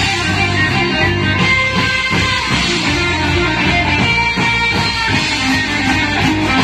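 Women's marching band playing a tune on saxophones and trumpets over a steady drum beat.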